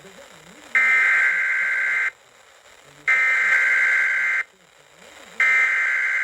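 Emergency Alert System SAME header: three bursts of screechy, warbling digital data tones, each about a second and a half long with about a second's pause between them. The header encodes the alert, here a severe thunderstorm warning.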